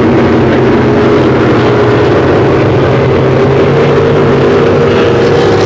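Racing speedboat engines running at speed across the water, a steady, loud sound whose pitch creeps up slightly in the second half.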